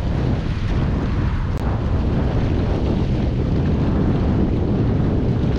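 Wind buffeting the microphone: a steady, loud rumbling noise heaviest in the low end, with no distinct events.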